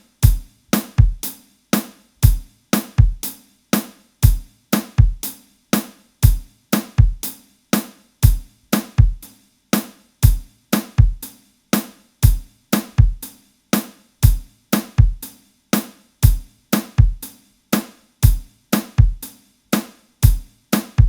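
Looped two-bar groove of recorded acoustic drum kit samples, with kick, snare and hi-hats, playing as a steady, even beat. Each hi-hat sample starts at a slightly different point, so the hats vary from hit to hit and sound more human and less mechanical.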